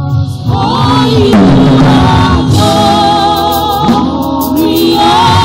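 Gospel choir singing a slow worship song, several voices together over sustained backing.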